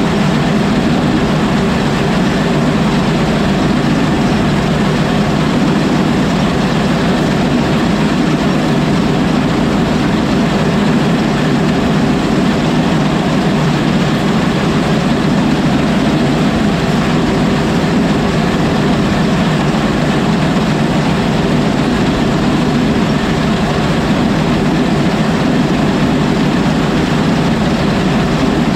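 Oliver 7300 combine's engine and machinery running steadily, a loud, even drone that does not change in pitch or level.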